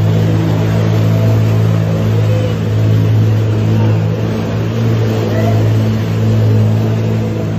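Jet ski engine running steadily at an even pitch, with its jet churning the water.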